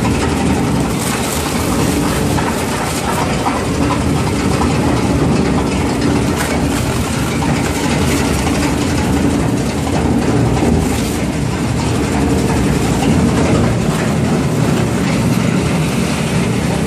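Woven-bag shredder running, its cutters tearing woven plastic bags into flakes: a steady, dense mechanical noise over a constant low hum.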